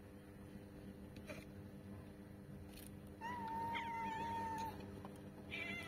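Cat meowing: one long, drawn-out meow about three seconds in, held at a nearly steady pitch for about a second and a half, then a shorter meow near the end.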